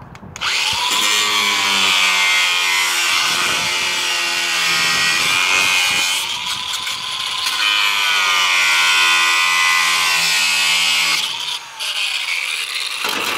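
DeWalt cordless angle grinder cutting through a plastic truck wiper cowl cover: a loud, steady motor whine that sags in pitch and recovers as the disc bites into the plastic. It starts about half a second in and stops just before the end.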